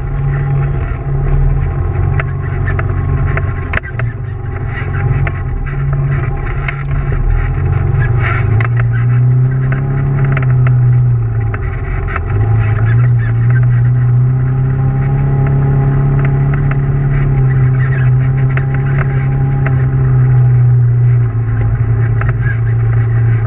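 Side-by-side UTV engine running steadily, heard from the driver's seat, with short knocks and rattles from the machine jolting over the rough trail. The engine note dips about nine seconds in, then holds steady again.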